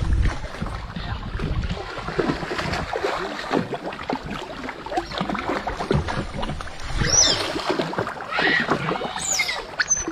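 Water splashing and sloshing around a small fishing boat being worked in the water. In the last few seconds come several high, sliding chirps.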